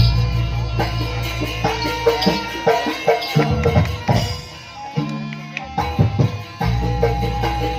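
Jaranan ensemble music played live: hand drums beating over sustained pitched instruments and a deep bass. The bass drops away for a few seconds in the middle and comes back strongly near the end.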